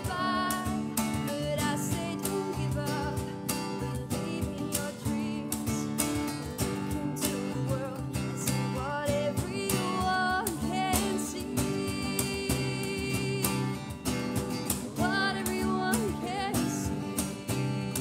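Live acoustic band playing: strummed acoustic guitars over a steady cajon beat, with a female voice singing in phrases at times.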